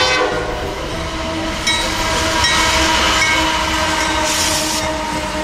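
Diesel freight locomotives passing close by, engines running steadily over the rumble and clatter of wheels on the rails, then freight cars rolling past; the tail of a horn blast fades out at the very start.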